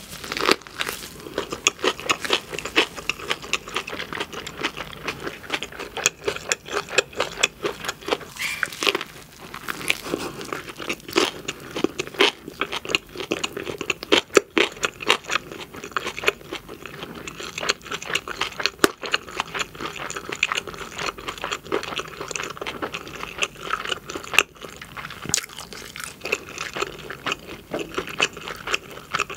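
Close-miked chewing of a large mouthful of gimbap (seaweed-wrapped rice roll), with many small sharp crackles and wet mouth sounds throughout.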